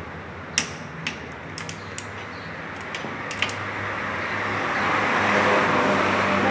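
Sharp metallic clicks of hand tools on the camshaft sprocket bolts as they are torqued to about 54 N·m. After about three seconds a rushing noise swells and stays loud to the end.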